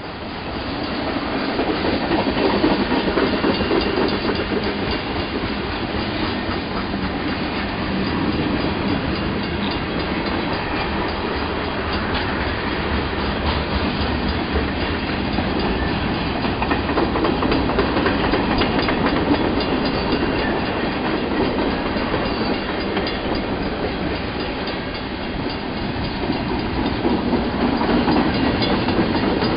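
Union Pacific freight train rolling past close by: steady wheel and rail noise with a clickety-clack from the wheels over the rail joints, rising in level right at the start.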